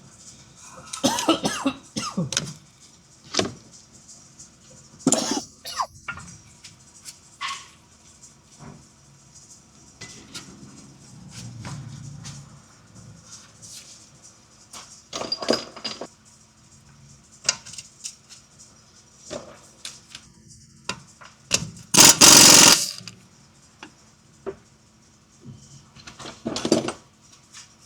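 Scattered clanks and knocks of work on metal, with one loud noisy burst lasting about a second about 22 seconds in.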